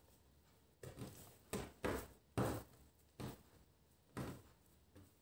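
About eight soft, irregular knocks and pats of hands and yeast-dough strands being laid and pressed onto a countertop while a bread braid is plaited.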